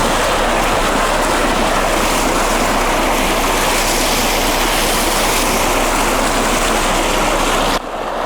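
Water gushing from a burst residential water main: a loud, steady rush that cuts off suddenly near the end.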